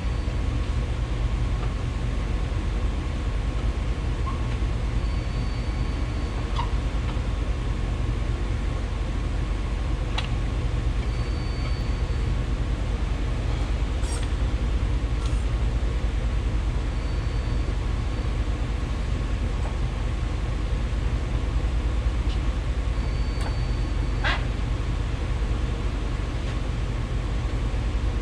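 Steady low mechanical hum with a short, high beep repeating about every six seconds and a few faint clicks.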